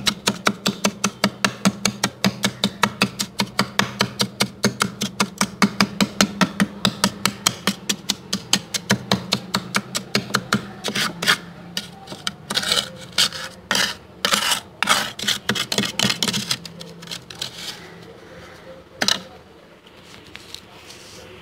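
Plastic spoon scraping through thick freezer frost in quick, even strokes, about four or five a second. About halfway through it slows to fewer, heavier scrapes, with one last scrape near the end.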